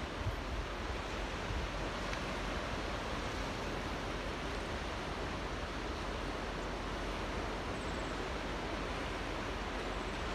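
Ocean waves lapping, a steady wash of water with no distinct breaks.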